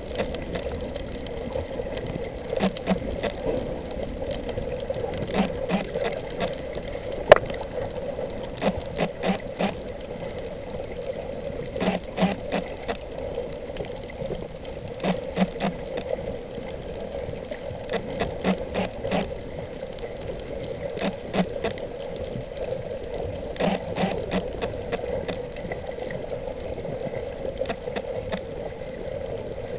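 Underwater sound picked up by a submerged camera: a steady hum and hiss with short clusters of clicks and rattles every two to three seconds, one louder crack about seven seconds in.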